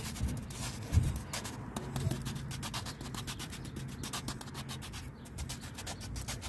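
Sponge dabbing and rubbing thin mortar onto the rough surface of a cement planter: a quick, irregular run of soft scratchy strokes.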